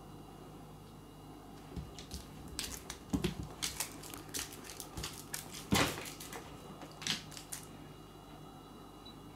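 Cat pouncing on and grappling a plush kicker toy on a wooden floor: a quick run of rustles, scratches and light knocks that starts about two seconds in and stops about two seconds before the end.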